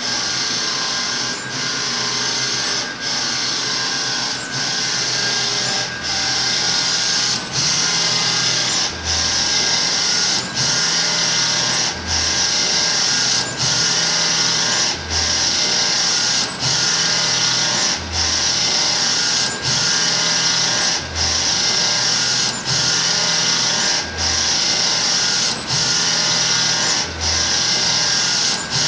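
Mutoh printer running in a steady mechanical cycle. A brief dip in the noise repeats about every second and a half, and the owner calls it a strange noise.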